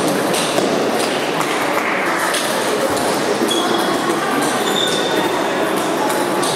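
Table tennis balls clicking off bats and tables in quick, irregular strikes over a steady din in the hall. Two brief high squeaks come in around the middle.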